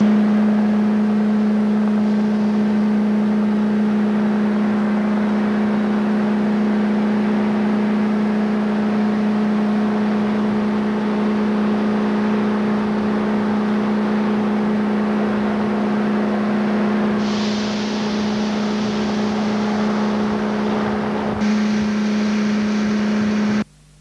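Tug's diesel engines running steadily: a loud, constant low hum over a wash of noise, cutting off abruptly near the end.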